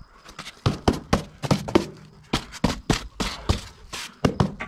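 A rapid, uneven run of taps and knocks, starting about half a second in: a polystyrene insulation board being patted and knocked into its fresh adhesive against a brick wall to set it level.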